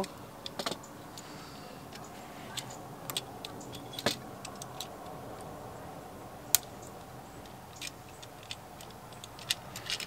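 Light clicks and rattles of electrical wiring being handled: copper ground pigtails, a lever-type Wago connector and a GFCI receptacle worked at an outlet box. There is a sharp click about four seconds in and another about six and a half seconds in, over a steady low background hum.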